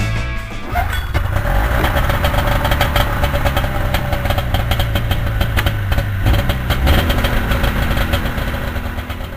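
Older snowmobile engine running steadily at idle after being pull-started.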